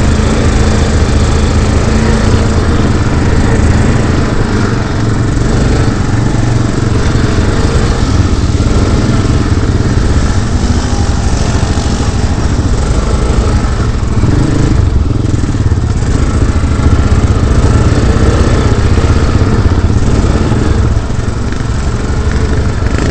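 Quad bike (ATV) engine running loud and close, holding fairly steady revs throughout.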